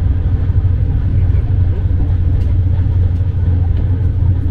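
Rajdhani Express passenger train running on the rails, a steady low rumble with a few faint clicks.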